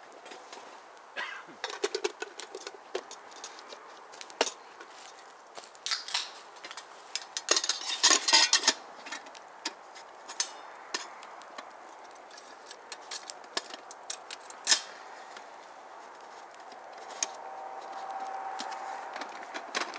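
Metal camp dishes and utensils clinking and clattering as they are handled, in scattered knocks with a busier, louder run of clatter about eight seconds in.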